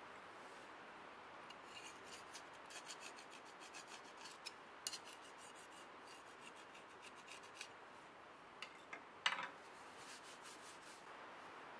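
Flat gasket scraper scratching old gasket residue off a metal valve cover plate in quick, light strokes, with one sharper, louder scrape near the end, followed by a rag wiping the plate.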